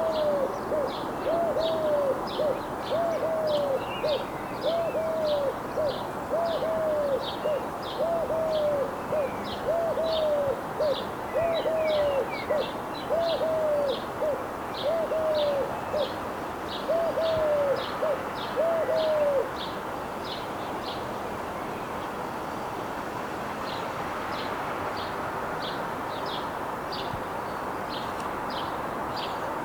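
Eurasian collared dove singing: a steady series of repeated cooing phrases, about one a second, that stops a little before two-thirds of the way through. A high-pitched rhythmic ticking carries on in the background over a steady hiss.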